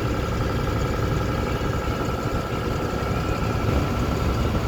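Farm tractor engine running steadily while driving a round hay baler off the PTO, with a steady high whine over the low engine rumble.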